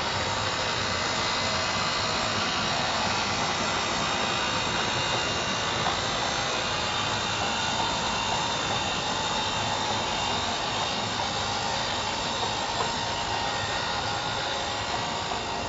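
HO-scale model train running steadily along the track: a continuous rumble and hum of wheels and motors, with faint steady whining tones over it.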